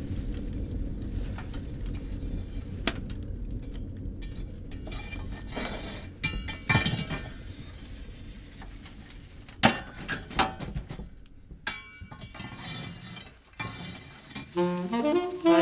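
Scattered clinks and knocks of hard objects over a low steady hum, with music starting near the end.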